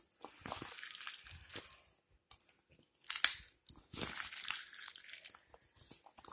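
Hand squeezing and crushing chopped tomato, green chillies and shallots in a stainless steel bowl to mix them. The sound comes in three bursts with short pauses, the loudest about three seconds in.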